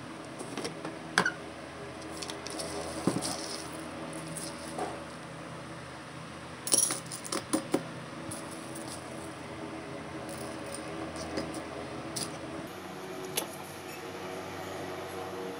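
Dry hamster seed mix of sunflower seeds and grains dropped by hand into a small stainless-steel bowl: scattered clicks and rattles of seeds on metal and light clinks of the jars, with a cluster of louder clicks about seven seconds in, over a steady low hum.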